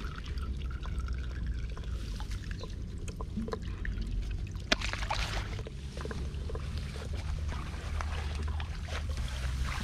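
Water sloshing and trickling, with scattered small knocks, over a steady low rumble. A sharp click comes about halfway through, followed by a brief louder splash of water.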